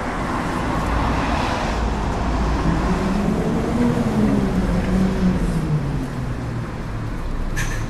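Bus engine running with rumbling road noise, its engine note climbing for the first few seconds and then dropping away.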